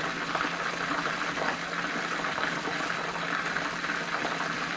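Chicken wings deep-frying in hot oil in a pot: a steady sizzle with dense crackling.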